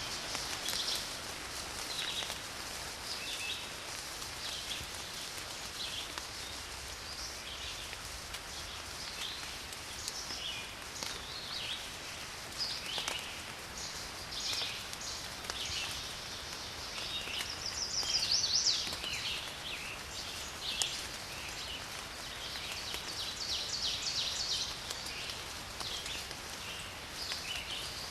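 Many small birds chirping over a steady hiss of light rain, with a louder trill about eighteen seconds in.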